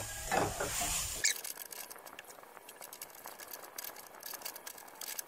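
Spatula scraping and clicking against a nonstick pan as chicken pieces are stir-fried in a garlic-chilli paste: a run of small, quick clicks that turns fainter and thinner about a second in.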